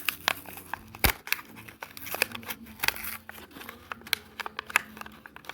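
Plastic clicking, tapping and crinkling from handling a Hot Wheels die-cast car and its plastic track, with one sharp knock about a second in.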